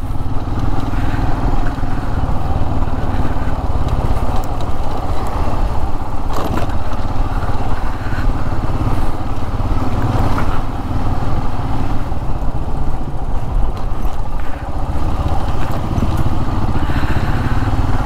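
Motorcycle running at speed while being ridden, a steady engine-and-road noise, with a couple of brief knocks about six and ten seconds in.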